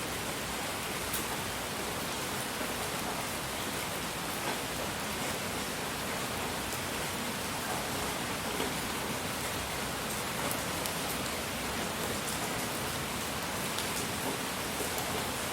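A steady, even hiss of relaxing noise, with a few faint ticks scattered through it.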